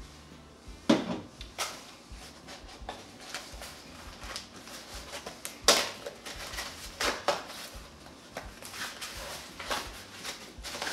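Small cardboard box being handled and opened by hand: irregular rustling and scraping of cardboard with scattered knocks, two sharper ones about a second in and just before six seconds.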